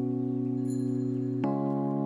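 Background music of sustained held chords, moving to a new chord about a second and a half in.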